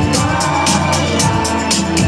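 Instrumental song accompaniment with a steady drum beat of about four hits a second under held chords, with no singing.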